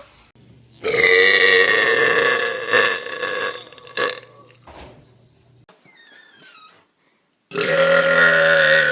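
Two long, loud human burps from two different people. The first starts about a second in and lasts about three seconds; the second starts near the end.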